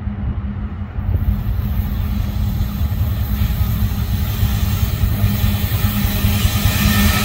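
Locomotives rumbling as they roll past, a steady low engine drone with a held low tone that grows gradually louder as they approach, rail and wheel noise filling in from about a second in.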